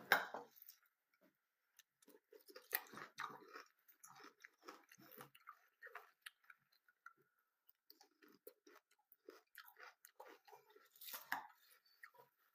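A person chewing and crunching cornflakes close to the microphone: irregular crisp crackles, with a few louder bites.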